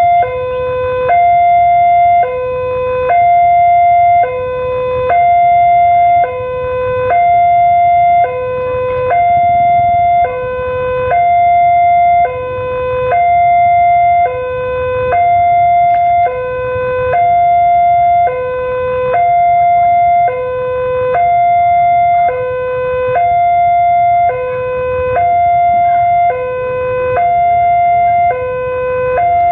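Railway crossing warning alarm sounding a loud electronic two-tone hi-lo signal, a higher tone and a lower tone alternating about once a second each, warning of an approaching train.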